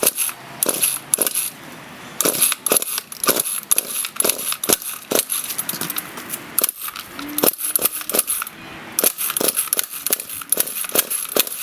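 Irregular sharp clicks and light rattling from handling the Poulan P3816 chainsaw, with no engine running.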